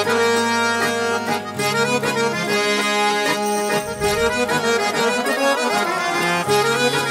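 Instrumental background music: sustained chords with a wavering melody line, no singing.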